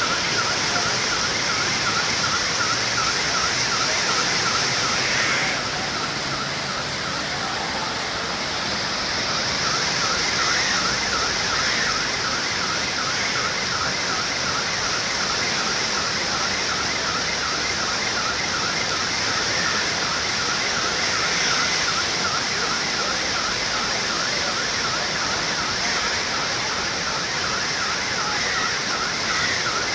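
Fast, swollen floodwater rushing over a flooded riverbank, a loud steady rush. Over it a high electronic alarm warbles about two to three times a second, dropping out for a few seconds shortly after the start and then carrying on.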